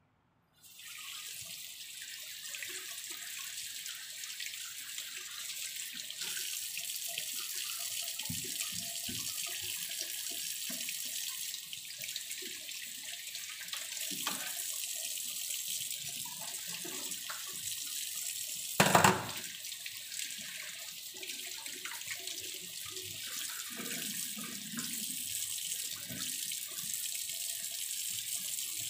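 Kitchen tap turned on about half a second in, then running steadily into a stainless steel sink, splashing over a fish as hands rinse it under the stream. One loud knock about two-thirds of the way through.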